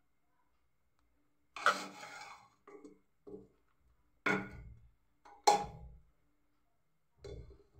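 A steel spoon scraping and knocking against the inside of a pressure cooker while scooping cooked rice: about six separate strokes, each starting sharply and fading within about half a second.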